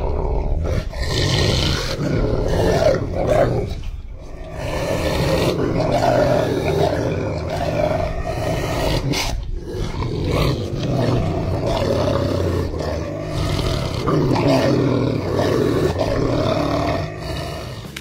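Rottweiler growling in long continuous stretches, broken briefly about four and nine seconds in.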